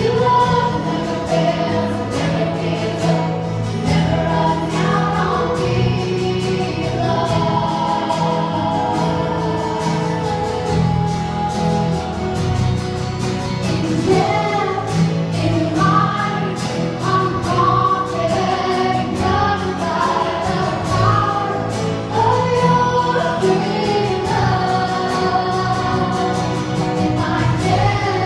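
Choir singing gospel music with instrumental accompaniment.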